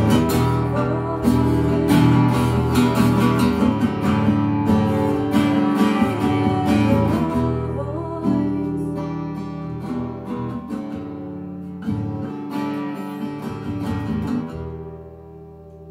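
Acoustic guitar strummed through a song's ending, the playing easing off and stopping about fourteen seconds in, leaving the last chord ringing.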